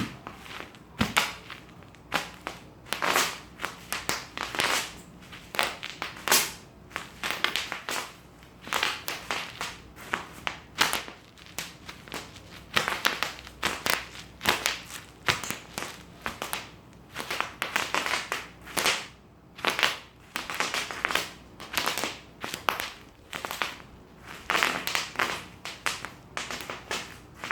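Bubble wrap being crushed, its air bubbles popping in rapid, irregular clusters of sharp cracks, with crinkling plastic in between.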